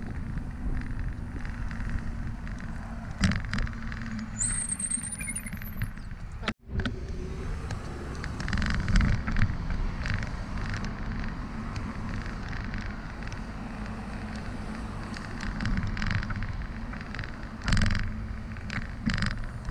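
Riding a bicycle along concrete pavement and across a road: steady wind and tyre rumble on the bike-mounted microphone, with repeated knocks and rattles over pavement joints and car traffic around. The sound cuts out for an instant about six and a half seconds in.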